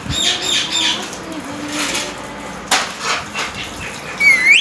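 Pet parrot calling: a quick run of short, high chirps at the start, then a louder squawk that dips and rises in pitch near the end. Between them come rustling sounds and one sharp click.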